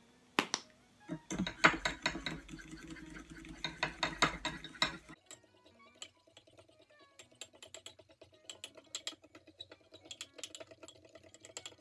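Kitchen utensils clicking and clinking against a mug or bowl while cake batter ingredients are measured and mixed: a busy clatter for about five seconds that drops off suddenly, then lighter, scattered clicking. Soft background music runs underneath.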